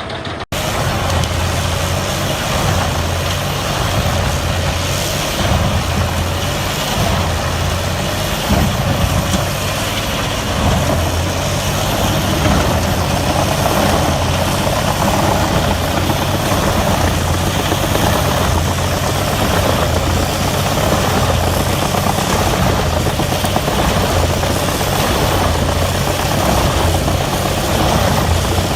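Mobile wood chipper running steadily under load: a heavy engine hum with the dense, grinding noise of wood being chipped. The sound drops out briefly about half a second in, then carries on steadily.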